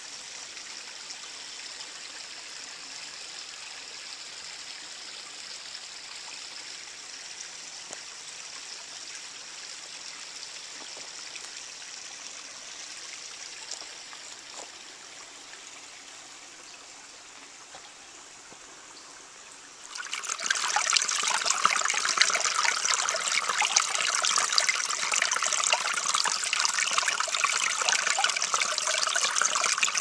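Shallow creek water trickling over rocks: a faint, steady hiss for the first twenty seconds or so, then suddenly much louder and fuller from about two-thirds in, heard close to a small spill between the stones.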